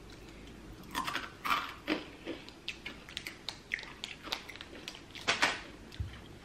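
Clear plastic candy wrapper crinkling as it is handled: a run of short, irregular crackles.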